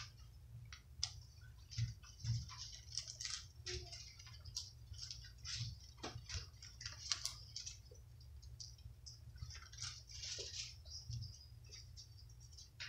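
Irregular light rustles and small crisp clicks of Bible pages being leafed through, over a low steady hum.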